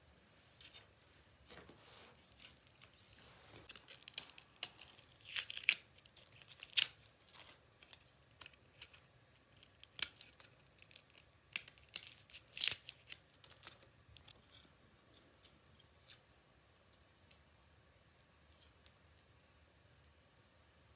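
Dry, papery garlic skins crackling and tearing as cloves are peeled with a small knife: a dense run of sharp crisp crackles that thins to scattered, fainter ones about two-thirds of the way through.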